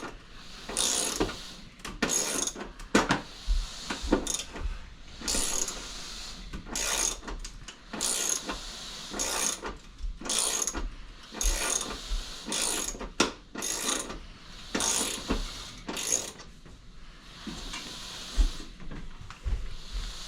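Hand ratchet wrench driving a bolt into the wall for a TV mount: repeated ratcheting strokes, about one to two a second, with a short pause near the end.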